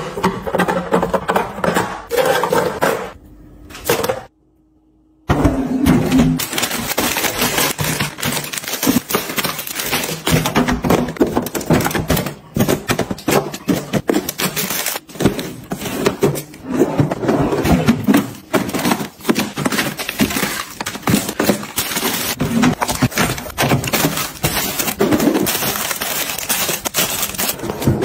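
Dense, irregular clatter of groceries being handled and stacked into a refrigerator: glass bottles knocking and boxes and plastic packaging crinkling. There is a short break about four seconds in.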